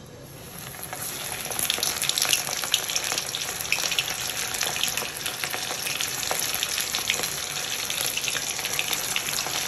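Semolina-coated pomfret frying in hot oil, a steady sizzle with frequent sharp pops and crackles. The sizzle swells over the first second or two as the fish goes into the oil, then carries on evenly.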